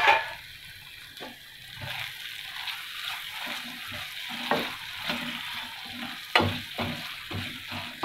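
Onion-tomato masala sizzling and bubbling in a nonstick frying pan while a wooden spatula stirs it, scraping and tapping against the pan. It has been simmering covered until the tomatoes softened. The stirring strokes come thicker in the second half, with a few sharper knocks of the spatula on the pan.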